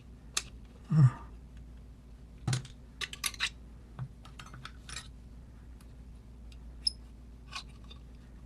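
Small metal lock parts and tools being handled on a hard surface: scattered sharp clicks and clinks. There is a louder dull knock about a second in, another about two and a half seconds in, and a brief high metallic ping near the end.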